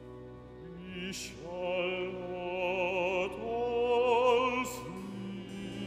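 Baritone singing an accompanied recitative with wide vibrato over sustained string-orchestra chords. The voice enters about a second in and stops shortly before the end, leaving the strings holding a low chord.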